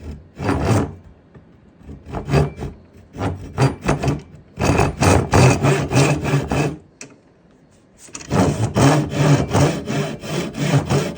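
Hand saw cutting wood in quick back-and-forth rasping strokes, stopping briefly twice before starting again.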